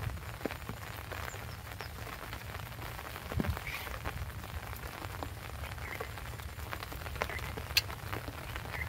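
Steady rain falling, with many scattered sharp drop ticks and one soft thump about three and a half seconds in.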